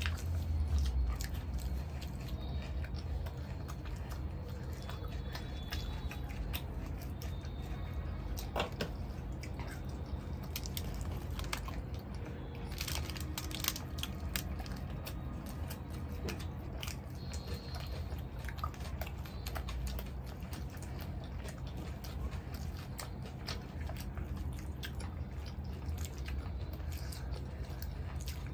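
Close-miked chewing and biting by two people eating naan dipped in masala chaap curry with their hands: wet mouth sounds and many small irregular clicks over a steady low hum.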